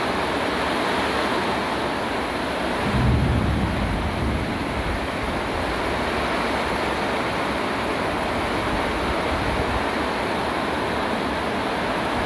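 Heavy rain falling steadily in a downpour. A brief low rumble swells about three seconds in.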